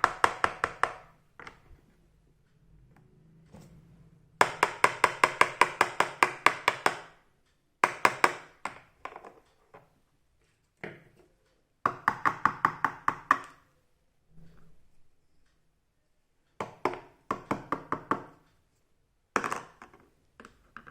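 Small plastic toy kitchen pieces clicking in quick bursts of rapid, evenly spaced ticks, about ten a second, repeated several times with short pauses between.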